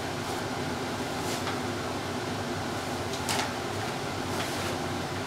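Brown paper grocery bag rustling and crinkling in several short bursts as a cat paws and pushes into it, the loudest about three seconds in. A steady hum runs underneath.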